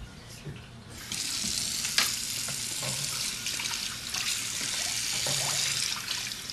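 Water running from a tap, turned on about a second in and then flowing steadily, with a sharp click about two seconds in.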